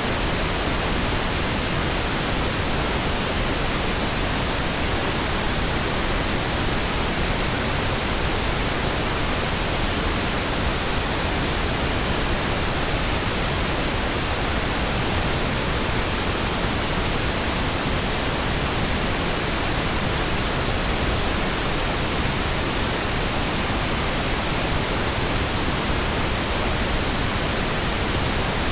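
Steady, continuous pink noise: an even hiss with no changes or interruptions.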